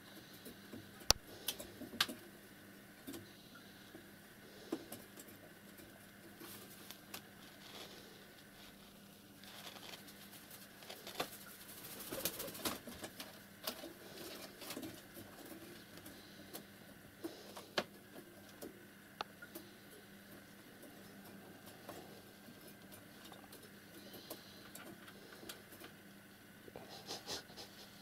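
Faint scattered clicks and rustles from a pair of white domestic pigeons moving about on a wooden ledge, with a longer flurry of rustling about twelve seconds in.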